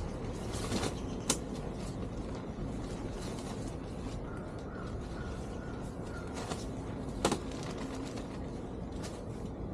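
Plastic push-pin fasteners being pressed back into a Can-Am Spyder's body panel: three sharp clicks spread over several seconds, over a steady background hiss.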